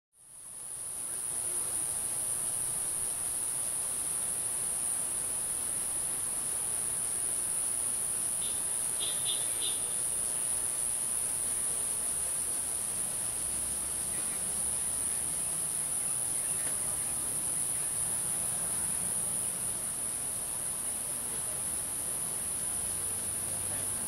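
Cicada song: a steady, very high-pitched buzzing drone that fades in over the first second and holds without a break.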